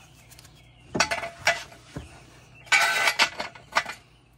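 Metal brake caliper clinking and clattering against a steel jack stand as it is set down, several sharp clinks with a louder, briefly ringing clatter about three seconds in.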